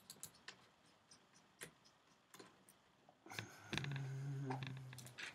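Small, faint clicks and taps of a screwdriver and screws being worked out of a laptop screen's frame. About three and a half seconds in, a louder low, steady hum lasts just over a second.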